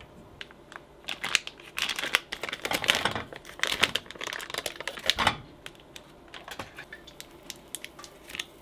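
Foil cream cheese wrapper crinkling and crackling in dense bursts for about four seconds as the cheese is squeezed out, then a few lighter crackles and clicks.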